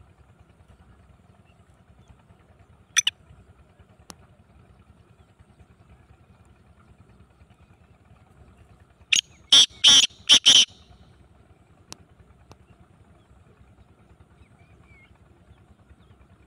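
Black francolin calling: one short note about three seconds in, then a loud harsh series of about five quick notes around the middle, over faint steady background noise.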